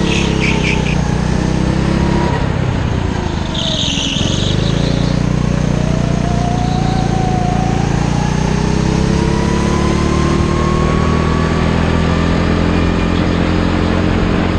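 Go-kart engine heard onboard, running hard, easing off about three to four seconds in, then rising steadily in pitch as the kart accelerates. A brief high squeal about four seconds in.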